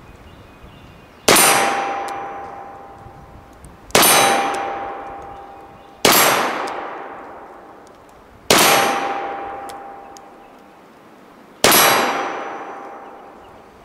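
Cap-and-ball Navy revolver with black powder loads fired five times, a few seconds apart, each shot echoing away slowly. After most shots comes a ringing clang from the struck steel target.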